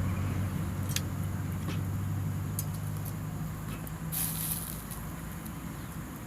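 Wood fire crackling, with sharp pops and a brief hiss about four seconds in, over a steady low hum that fades near the end.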